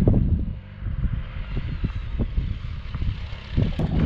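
Motorcycle engines running, with wind buffeting the microphone, as a motorcycle rides up and stops alongside on a gravel road; the engine sound grows louder near the end.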